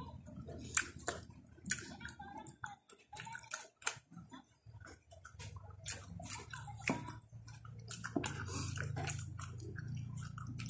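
Close-up chewing of banana: wet mouth smacks and sharp clicks, irregular and scattered.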